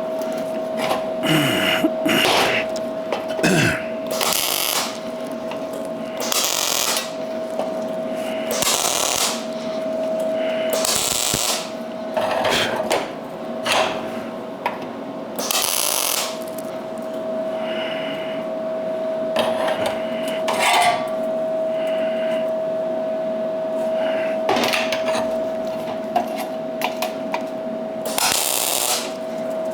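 MIG welder laying a series of short tack welds and stitches on steel, each a crackling hiss lasting half a second to two seconds, with brief pauses between. A steady hum runs underneath.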